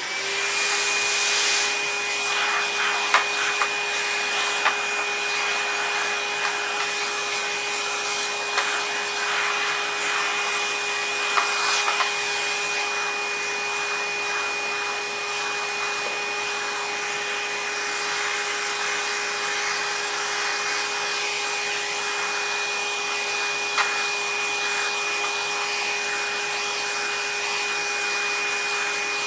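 A vacuum cleaner motor is switched on and spins up to speed within about a second. It then runs steadily with a high whine over a rushing of air, with a few small knocks along the way.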